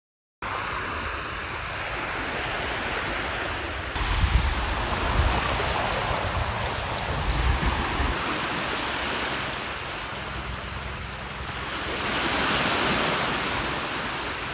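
Small sea waves washing onto a sandy beach, a steady wash that swells louder near the end.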